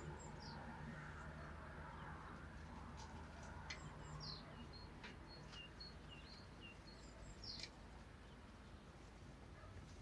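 Quiet farmyard ambience: faint, short high-pitched chirps of small birds scattered throughout, with a few soft clicks over a low steady hum.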